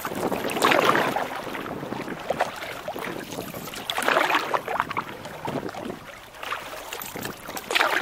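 Choppy water splashing around a Sportspal canoe, with louder splashes about every three and a half seconds.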